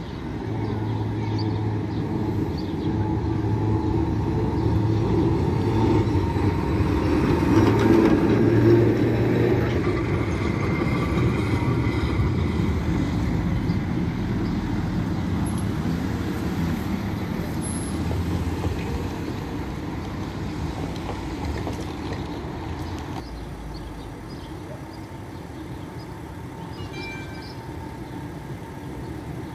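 Vintage Be 4/4 tram with a trailer running past on street track: motor hum and the rumble of its wheels on the rails, growing louder to a peak about a third of the way in, then slowly fading as it moves away.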